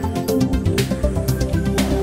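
Background music with a steady beat over a bass line.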